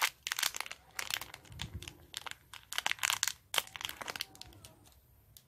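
Small foil blind-bag wrapper being torn open and crinkled by hand: a run of irregular crackles that thins out and stops near the end.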